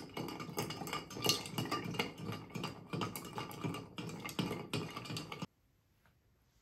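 Long bar spoon stirring big chunks of ice in a glass mixing glass to chill a Manhattan cocktail: a quick, continuous run of clinks and scrapes of ice against glass, which cuts off suddenly about five and a half seconds in.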